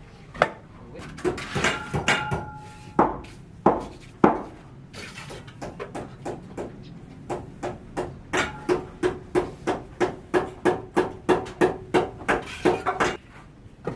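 Hammer blows on a building site: a few scattered knocks, then a steady run of strikes, about three a second, each with a short ringing note.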